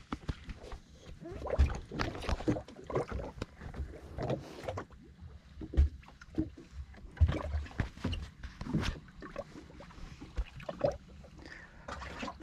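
Irregular knocks, taps and clatter aboard a small fishing boat, coming unevenly every second or so.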